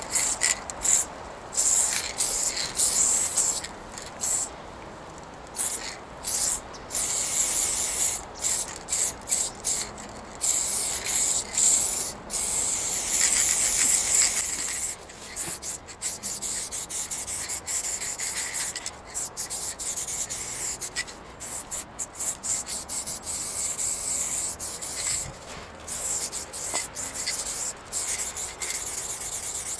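Spray paint hissing from a nozzle in repeated bursts, from short taps to longer passes of a second or two.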